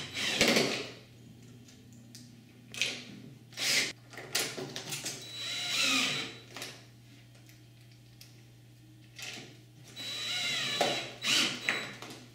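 Cordless drill-driver driving screws through a tilt-and-turn window's bottom corner hinge into the uPVC sash, in several short runs with pauses between them.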